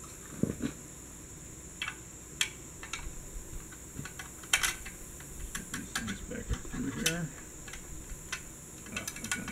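Hand wrench tightening the nut on a battery hold-down bar, irregular light metallic clicks and clinks of the tool against the nut and steel bracket.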